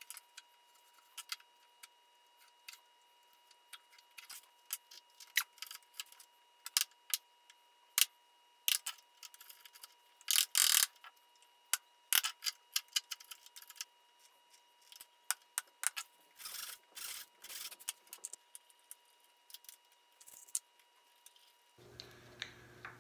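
Hand screwdriver driving screws to fix a hinge onto a walnut door: irregular clicks and ticks, with a few short scraping turns, the longest about ten seconds in.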